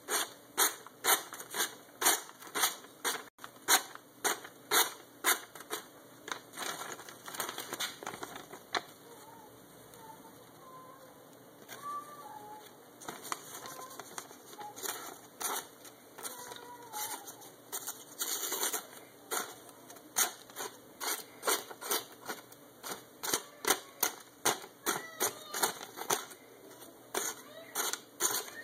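A very sharp hand-made knife slicing through a glossy paper flyer, a quick papery rip with each stroke, about two strokes a second. The cuts stop for several seconds in the middle, then start again at the same pace.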